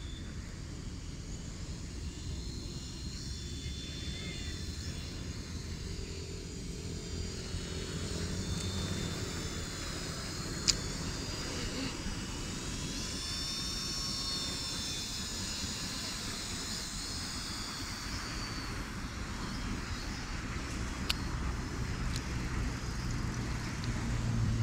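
MJX F45 radio-controlled helicopter flying at a distance: a high, thin whine from its electric motor and rotor that wavers up and down in pitch, over a low rumble of wind. Two sharp clicks, one about eleven seconds in and one about twenty-one seconds in.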